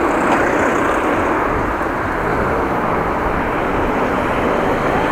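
Steady rushing wind and road noise on the microphone of a moving bicycle. No squeal or other distinct tone stands out.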